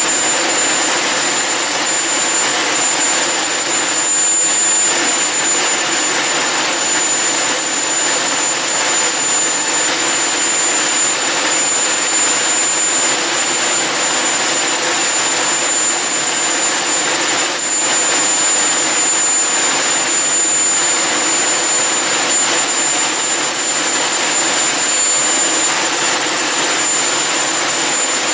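Homemade HX Monster Mark 2 turbojet engine running steadily on a test run: a loud, even rush of jet noise with a constant high-pitched whine over it.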